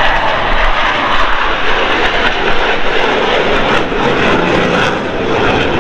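Military jet flying past, its engine noise loud and steady, easing slightly about five seconds in.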